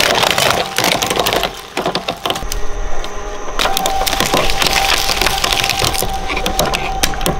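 Shredder crunching up a Minion toy: a dense crackle of snapping and splintering pieces that thins out briefly about two seconds in. Sharp cracks follow, and a steady whine comes in about halfway.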